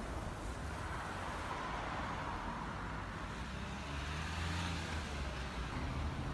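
Articulated trolleybus driving off along a city street: a steady low hum with tyre and road noise, amid light traffic.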